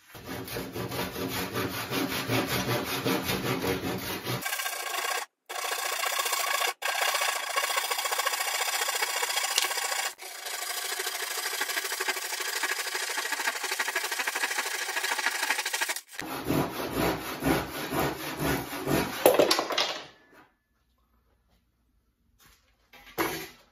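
Japanese ryoba pull saw cutting solid ash on its crosscut teeth, in quick repeated strokes. It is finishing through the remaining wood of a 45-degree chamfer that a track saw left uncut. The sawing breaks off briefly twice and stops near the end.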